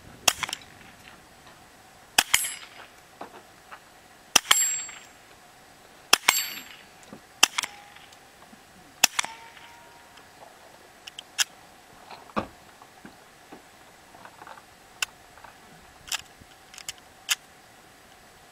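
A .22 pistol with a Gemtech suppressor fired slowly, about a dozen muffled shots one to two seconds apart. A few shots are followed by the short clang of a steel plate target being hit.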